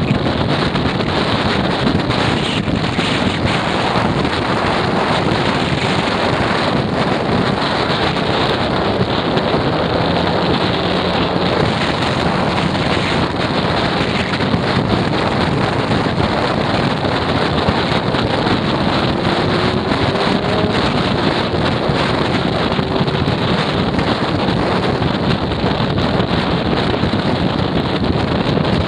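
Steady wind rush over the microphone of a camera mounted on the front cowl of a moving Suzuki Address V125G scooter, with the scooter's running and road noise blended underneath. Faint engine notes rise and fall slowly now and then.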